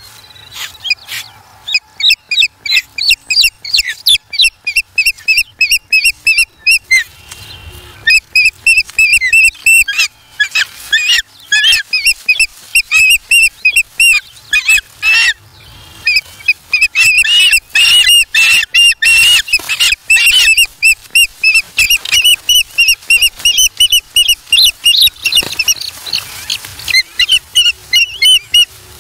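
Ospreys calling at the nest: long runs of short, high, piercing chirps, two or three a second, with a couple of brief pauses. These are the excited calls of two ospreys squabbling over a fish.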